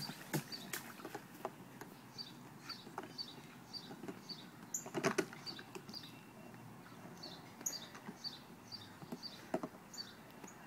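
Light splashing of water and knocks of plastic toys as small children play in backyard bathtubs, with a louder splash about halfway through. A bird chirps over and over in the background, about three short notes a second.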